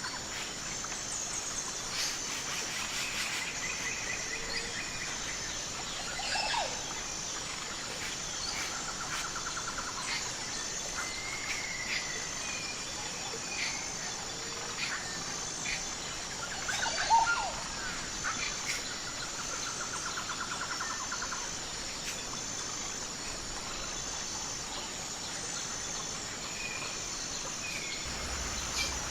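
Outdoor nature ambience: birds chirping and calling here and there over a steady, high, evenly pulsing insect chorus, with a few short buzzy trills and one louder call about two-thirds of the way through.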